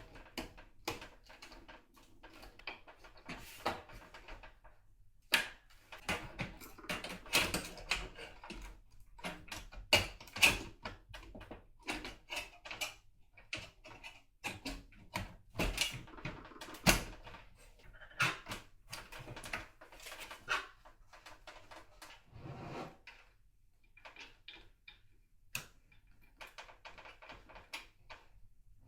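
Irregular clicks, knocks and rustling of hands working on a computer case, handling its parts and cables, with a few sharper knocks along the way.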